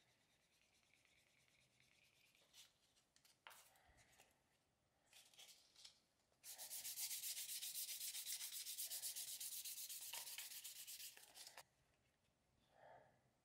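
A wooden edge burnisher is rubbed along the edge of a piece of leather, burnishing it. It starts as faint strokes with a few short scrapes, then brisk steady rubbing for about five seconds from the middle, which stops suddenly.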